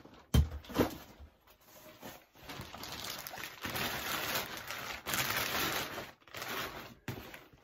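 Two knocks about half a second in, then clear plastic wrapping rustling and crinkling as it is handled and pulled off a bag for several seconds.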